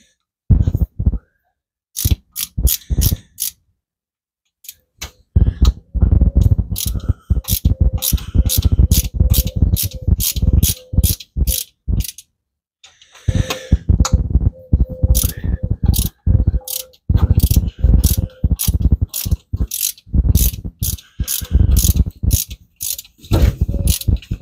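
Socket ratchet wrench clicking rapidly in long runs, several clicks a second, with short pauses between runs, as it backs out the bolts of an engine's thermostat housing.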